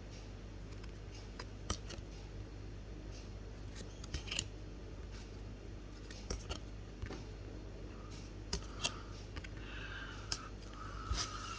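Scattered light clicks and snaps of Yu-Gi-Oh trading cards being handled and flicked through, over a steady low hum.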